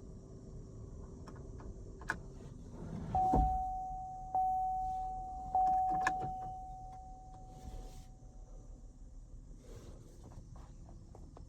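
A thump about three seconds in, then a Corvette C7's single-pitch chime tone sounds three times, each strike fading away, with scattered light clicks around it.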